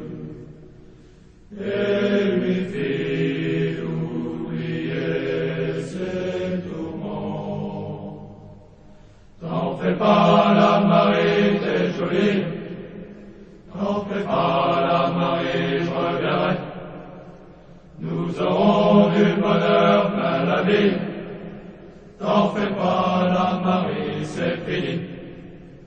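A large group of voices singing slowly in unison, in phrases of about four seconds, each followed by a short pause for breath.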